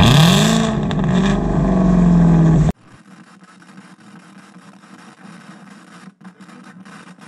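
Chevrolet Camaro's exhaust, loud: the engine blips up and back down, then holds a steady raised rev. About two and a half seconds in, the sound cuts off abruptly, leaving only a faint low hum.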